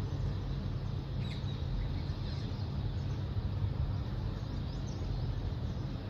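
A steady low rumble carries a few faint, scattered bird chirps, about a second in, in the middle and near the end.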